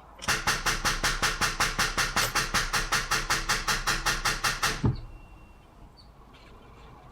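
V6 engine cranking on the starter without firing, in an even chug of about six beats a second that stops after about four and a half seconds with a low thump.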